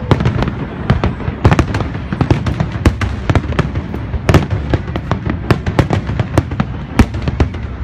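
Fireworks display: a rapid, continuous barrage of aerial shell bursts, many sharp bangs a second over a dense rumble, loud throughout.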